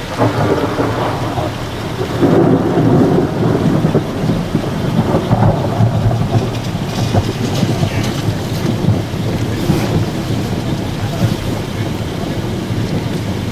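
Long, loud peal of thunder from a lightning strike, rolling and rumbling continuously and swelling about two seconds in.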